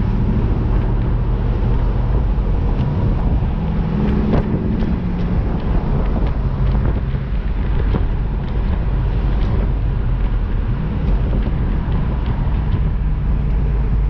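2002 Pontiac Trans Am WS6's LS1 V8 engine running with road noise while the car is driven, the revs rising and falling once about four seconds in.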